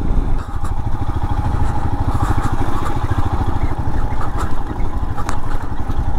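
Royal Enfield motorcycle ridden over a broken, rocky stretch of road: a steady low engine and road rumble, with the bike rattling over the rough surface.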